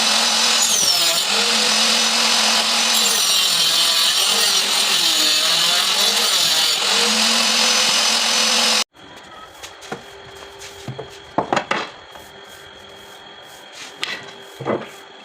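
Electric hand cutter (small handheld circular saw) mounted as a table saw, running at full speed and cutting wood, its pitch sagging briefly several times under load. It cuts off suddenly about nine seconds in, leaving a few light knocks and clicks.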